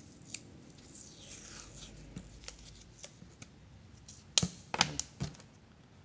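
Close hand-handling of small objects: faint rustling and a brief scratchy sweep, then four sharp clicks or knocks in quick succession about four and a half seconds in.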